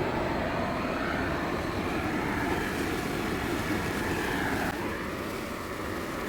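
Propane torch burner flame running with a steady rushing hiss, held to a brush pile to light it. It starts abruptly and drops slightly in level about three-quarters of the way through.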